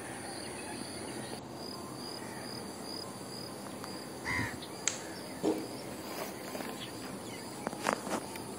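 Open-air lakeside ambience: a steady background hiss with insects chirring, a short bird call about four seconds in, and a few faint clicks later on.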